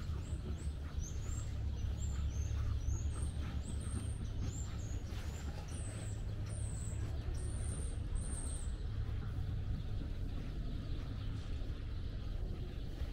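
Small birds chirping, a quick run of short high calls that stops about nine seconds in, over a steady low rumble.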